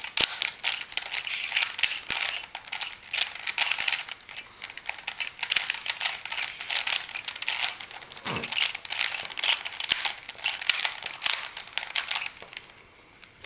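3x3 Rubik's cube being scrambled: its plastic layers turned rapidly by hand in a fast run of clicks and clacks that stops near the end.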